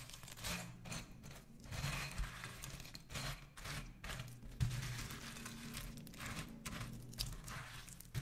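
Silicone spatula stirring broken biscuits, banana and yogurt in a glass bowl: irregular scraping and crunching strokes, one after another.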